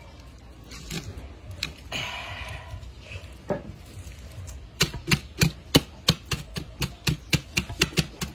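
Hands handling a whole unpeeled pineapple close to the microphone: a few soft rustles, then, about halfway in, a quick run of sharp knocks and taps on the rind, several a second.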